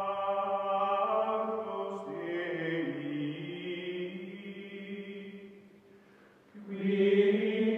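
Outro music of sustained, choir-like chanted voices holding long notes; it fades almost away about six seconds in and swells back a moment later.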